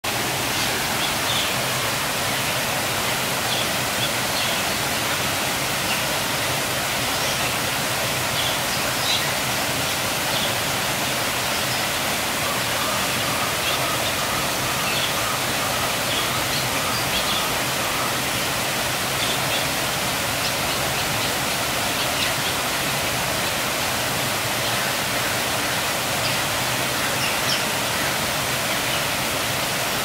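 Steady rushing of running water, even throughout, with brief faint high chirps of small birds scattered through it.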